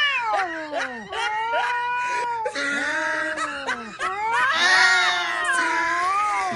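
Domestic cats yowling angrily: long drawn-out calls that slide up and down in pitch, overlapping one another, with a brief lull about four seconds in.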